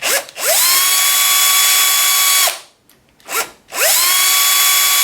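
Electric drill-driver spinning up and running at a steady whine, then stopping, twice in a row with a short blip between, as it backs out the screws that hold the clamps to the pole sections.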